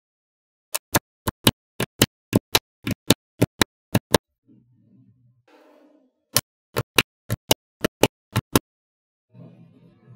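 Magnetic balls snapping into place one at a time: sharp clicks, about three or four a second, in two runs, with a softer rustle in the pauses between them.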